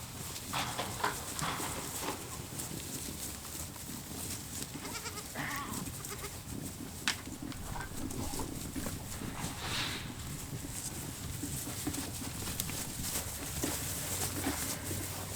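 Kiko goats bleating a few times, short calls about a second, five and ten seconds in, with one sharp click about seven seconds in.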